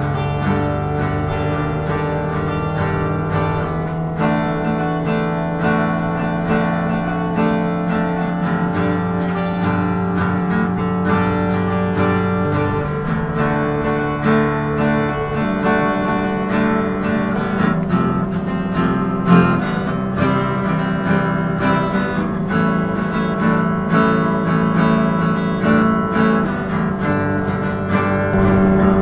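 Background music: acoustic guitar strumming a steady, rhythmic accompaniment.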